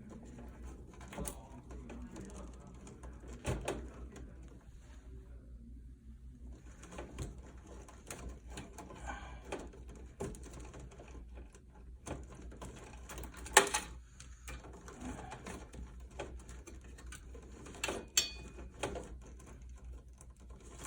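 Wiring and plastic pigtail plugs being handled and pulled through a tangle of wires inside a PTAC heat pump: scattered rustling and light clicks, with a sharp click about 13 seconds in and another near 18 seconds, over a steady low hum.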